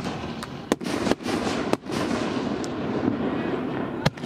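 Fireworks going off: about eight sharp, uneven bangs, most of them in the first two seconds, over a continuous noisy crackle. Near the end comes a close pair of bangs as a canister shell is fired from its mortar tube.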